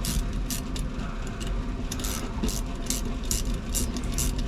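Quick metallic clicks, about three a second, from a wrench tightening the bolts of a new battery cable terminal.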